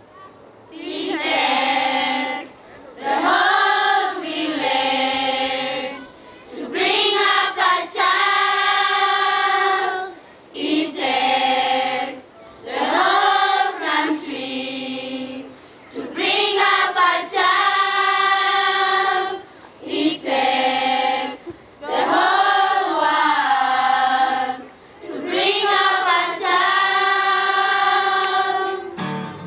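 A children's choir singing together in short phrases, each a few seconds long, with brief pauses between them.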